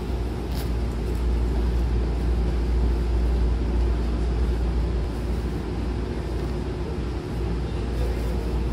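Steady low rumble and hum inside a stopped Hankyu 9000 series electric commuter train, its doors standing open at a station platform.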